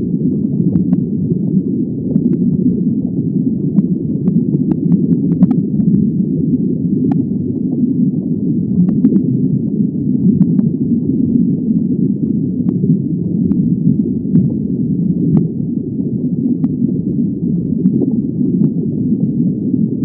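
Underwater ambience: a steady, muffled low rumble of water, with scattered sharp clicks and ticks.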